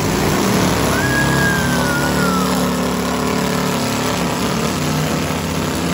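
V8 engines of demolition derby cars running loud and steady as the cars push against each other.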